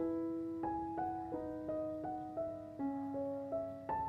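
Soft background piano music, a gentle melody with sustained notes.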